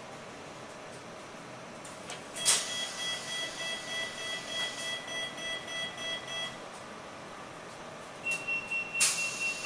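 Tram door warning beeper: after a sharp click, a two-tone beep pulses about three times a second for about four seconds. Near the end a higher single-tone beep starts pulsing, with another sharp click.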